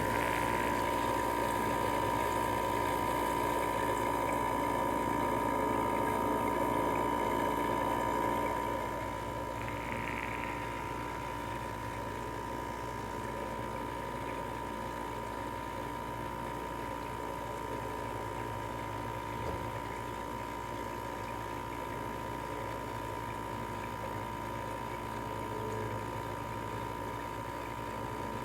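LG 6,000 BTU window air conditioner running: a steady hum with a constant high tone, its compressor on. It drops somewhat in level about nine seconds in, then runs on steadily.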